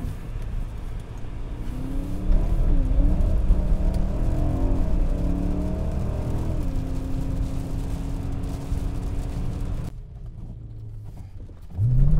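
BMW E90 M3's 4.0-litre V8 (S65) with an aftermarket exhaust and intake, heard from inside the cabin. The engine note climbs and falls through the revs, then holds steady for a few seconds. It drops away abruptly about ten seconds in, and near the end the revs rise again.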